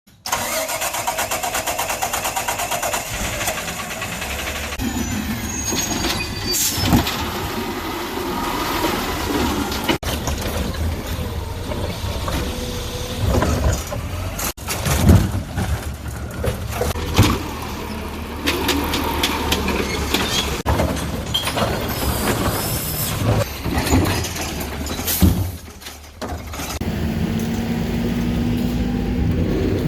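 Heil refuse truck's diesel engine running under load, with scattered clanks and bangs of bulky waste being handled. The sound changes suddenly several times, and a steady low hum takes over near the end.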